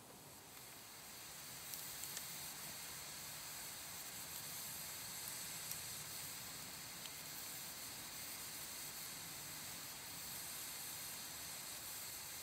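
Campfire of glowing embers and a burning log, hissing softly with a few faint crackles.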